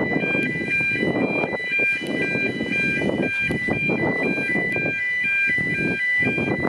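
A repeating tune of short, high electronic notes at several pitches, like a chime, over a steady low rumble.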